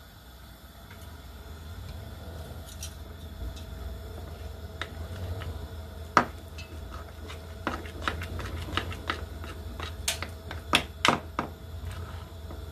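Metal spoon clinking and scraping against a small ceramic bowl while stirring gram-flour batter. The clinks are sparse at first and come thick and fast in the second half, one loud knock about six seconds in; a low steady hum runs underneath.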